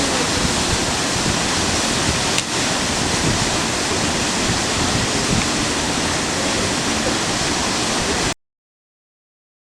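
Waterfall plunging into a pool: a steady, dense rush of falling water that cuts off abruptly into silence a little over eight seconds in.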